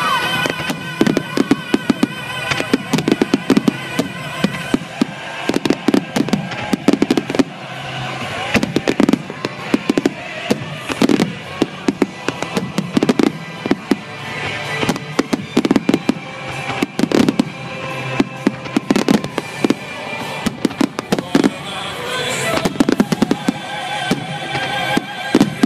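Finale barrage of aerial firework shells bursting overhead: dense, overlapping bangs several times a second with no letup.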